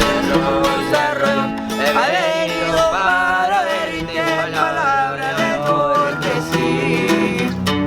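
Music: a regional Mexican-style song with plucked guitars and a bass line under a wavering melody line.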